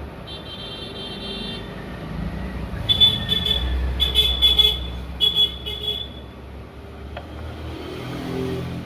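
Road traffic: a vehicle rumbles past while a horn honks in a series of short blasts, the loudest part, with one longer tone near the start.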